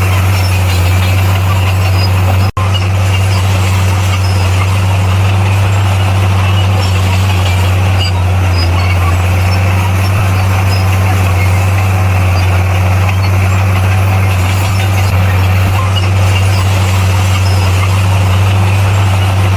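Heavy earthmoving machine's diesel engine running steadily with a deep, even drone, cutting out for an instant about two and a half seconds in.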